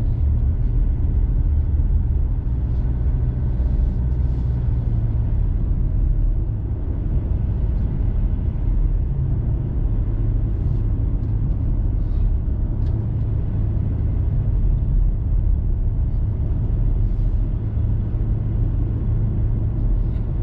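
Steady low rumble of a four-wheel-drive vehicle driving up a cleared mountain road: engine hum and tyre and road noise heard from inside the cabin.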